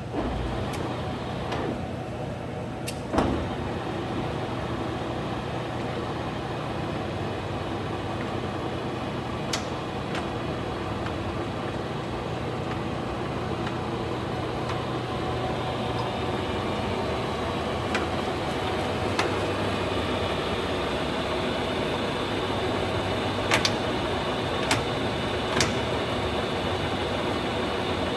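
Colchester 25 engine lathe with its 15 hp drive running under power, a steady geared hum with a few sharp clicks, the loudest about three seconds in.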